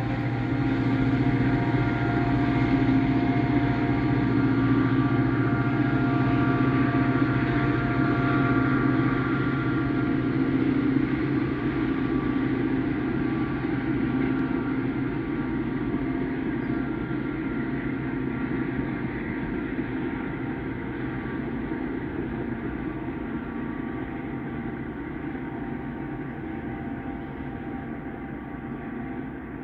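NJ Transit push-pull train of Comet V coaches pulling away: its diesel locomotive running and its wheels rolling on the rails, fading steadily as it leaves.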